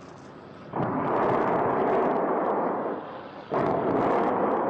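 Two explosions about three seconds apart. Each is a sudden blast followed by about two seconds of rumble that dies away.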